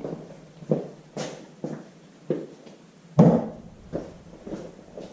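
Handling noise: about eight irregular light knocks and clunks as parts are moved around, the loudest a little over three seconds in.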